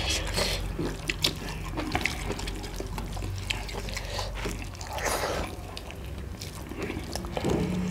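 Wet squishing of fingers mixing rice with curry on metal plates, with scattered small clicks and smacks of eating.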